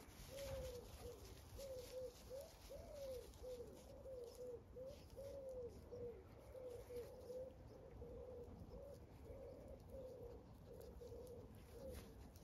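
A pigeon or dove cooing: a long run of soft, low, arched coos, one after another, that stops near the end.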